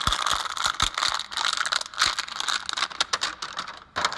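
Handheld noisemaker toy rattling: a dense, irregular run of rasping clicks with a few heavier knocks, fading out at the end.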